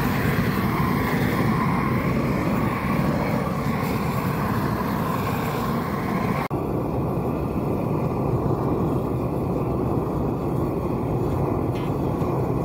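Propane weed-burner torch running at full flame, a steady roaring hiss as it scorches a sheet of OSB. About halfway through the sound abruptly turns duller, with less hiss.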